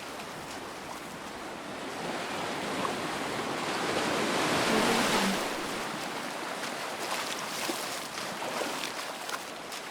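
Footsteps splashing through shallow sea water at a pebble beach, small scattered splashes over the wash of waves; a wave swells up and peaks about halfway through, then eases off.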